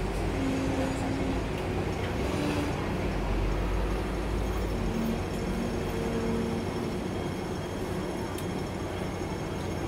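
Hong Kong double-decker tram running along its street track, heard from inside the upper deck: a steady rumble of wheels on rails, with a few brief faint whines. The deep rumble eases about four seconds in.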